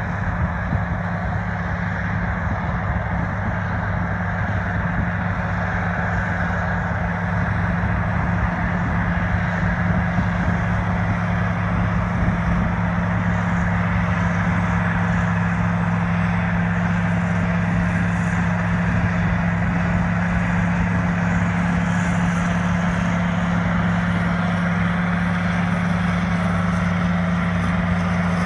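Big four-wheel-drive diesel tractors, a McConnell-Marc 1000 and a V8 Massey Ferguson 4880, running steadily under load as they pull primary tillage implements through corn stalks: a loud, even engine drone with a deep hum that holds steady throughout.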